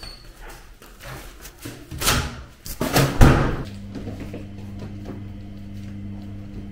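Two heavy thumps as luggage is handled at a doorway, about two and three seconds in, then a steady low hum.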